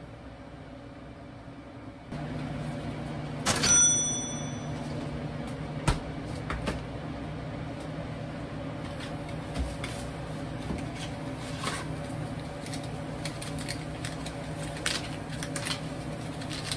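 A low steady machine hum switches on about two seconds in. A loud ringing clink comes about a second later, followed by scattered light clicks and knocks.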